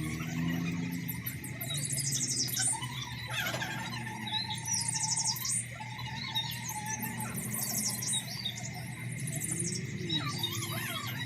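Birds chirping and trilling in quick repeated bursts, with a steady insect-like buzz and faint music underneath.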